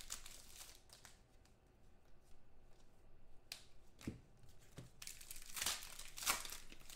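Trading-card pack wrapper being torn open and crinkled by hand: a quiet stretch, then several short rips and crackles in the second half.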